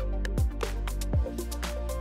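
Background music with a steady beat over sustained chords.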